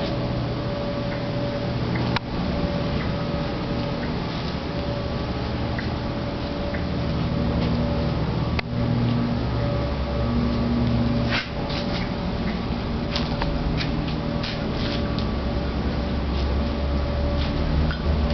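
Steady background of street traffic: a low rumble with engine hums that swell and fade, and a few short clicks scattered through.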